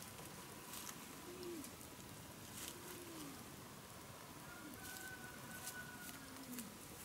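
A dove cooing, four low coos spread a second or more apart, each note rising and falling in pitch. Faint rustles and clicks, and a thin high whistle in the second half.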